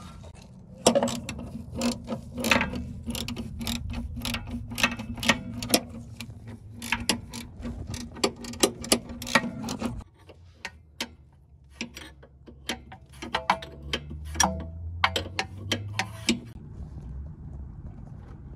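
Ratchet wrench clicking in quick runs of strokes while the rear sway bar link nuts are worked on. A steady low hum sits under the first half and stops abruptly about ten seconds in.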